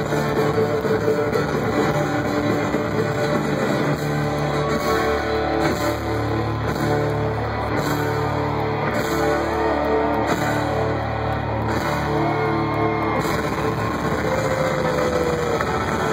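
Live rock band playing loud, continuous music, with electric guitar over steady sustained bass notes.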